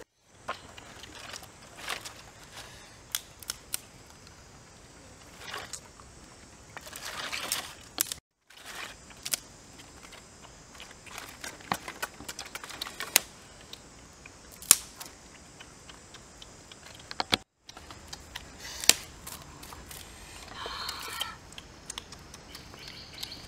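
Scattered sharp clicks and knocks of dry twigs and sticks being handled and laid for a small cook fire, with a few light clinks. The sound drops out briefly twice.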